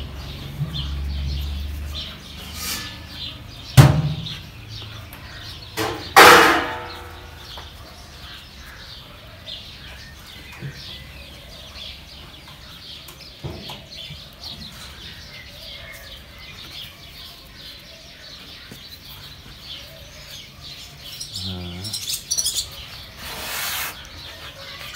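Small birds chirping steadily in the background. A sharp knock comes about four seconds in, and a louder ringing clang a couple of seconds later.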